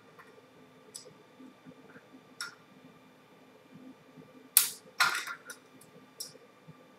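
Changing the router bit in a CNC router's spindle collet: scattered light metal clicks, then two sharp clinks a little over halfway through and a few smaller clicks after, over a faint steady hum.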